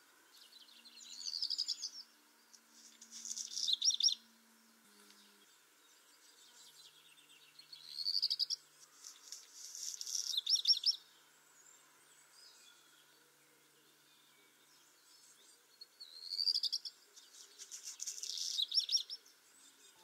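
Black redstart singing three songs several seconds apart. Each is a short whistled opening phrase, then after a brief pause a scratchy, crackling passage that ends in a few quick sharp notes.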